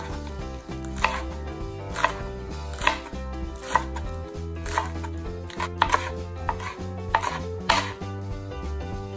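Chef's knife chopping green onions on a wood-fibre cutting board: about ten sharp knocks, roughly one a second, as the blade comes down through the stalks onto the board.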